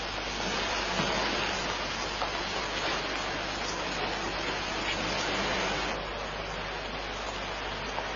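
A steady, even hiss of noise with a few faint clicks, dropping slightly in level about six seconds in.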